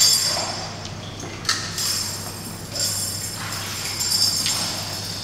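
A few sharp metallic clinks, each ringing out briefly with a high bell-like tone, as metal is struck, over a faint steady low hum.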